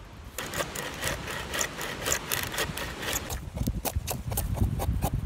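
A home-made bushcraft bow saw rasping through wood in quick back-and-forth strokes, about four a second. About three and a half seconds in it gives way to a knife shaving curls off a stick in sharp scraping strokes.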